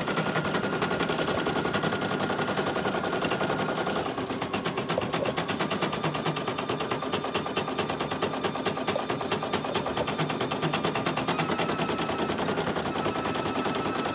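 Brother PE800 single-needle embroidery machine stitching at speed: a rapid, even needle clatter with a thin whine that drops in pitch about four seconds in and rises again later.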